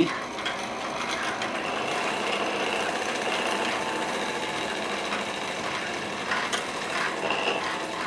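Exercise bike flywheel spinning, with a small AC ceiling fan motor held against its rim and driven by friction as a generator: a steady mechanical whirring.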